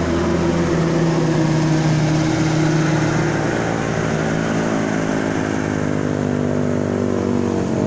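Van engine running steadily as it climbs a steep road and drives past close by.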